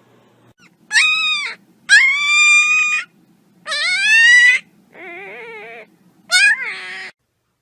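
A pet animal giving five separate high, drawn-out cries, each under a second long. The fourth cry is quieter, lower and wavering.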